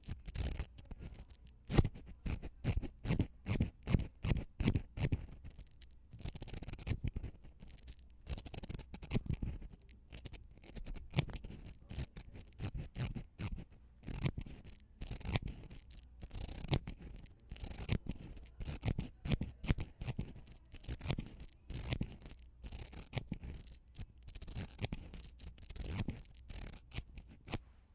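Mascara wand bristles making quick scratchy strokes, about two to three a second, in runs with short pauses between them.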